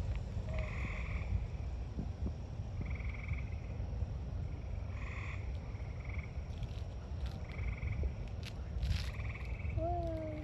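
Frogs calling in a chorus: short pulsed trills repeating every second or two, over a steady low rumble.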